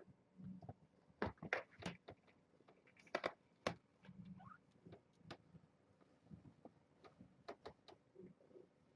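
Young kittens scampering and playing: scattered light taps, scratches and small thumps of paws and claws, with a few sharper clicks.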